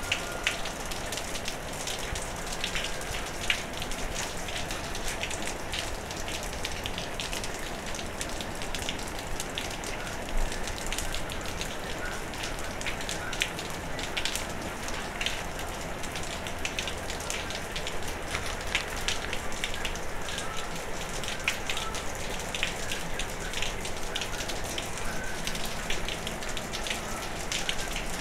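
Steady rain falling during a thunderstorm, with many sharp ticks of nearby drops hitting close surfaces.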